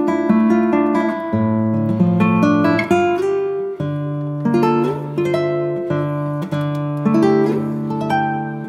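Background music: acoustic guitar playing plucked and strummed chords, changing chord every second or so.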